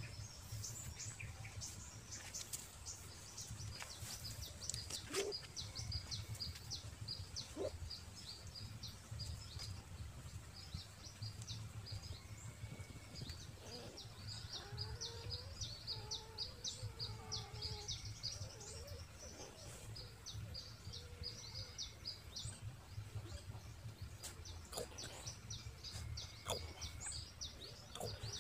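Small birds chirping and twittering continuously in the background, with a few faint whimpers from newborn puppies being handled, heard in the middle.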